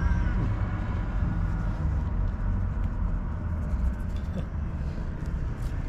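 Domestic cat purring close up, a steady low rumble, with a short meow right at the start.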